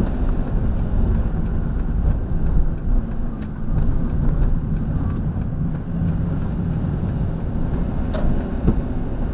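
A vehicle's engine and road noise heard from inside the cab while driving at low town speed: a steady low rumble.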